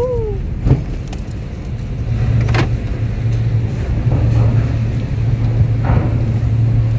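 Car engine running at low speed with a steady low hum, with three short knocks or clicks along the way.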